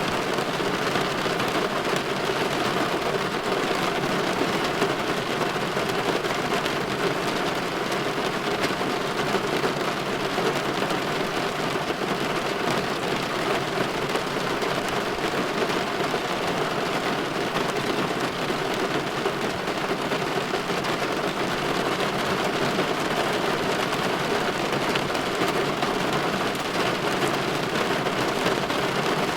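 Steady rain falling against a window: an even hiss and patter that holds level throughout, with no thunderclap.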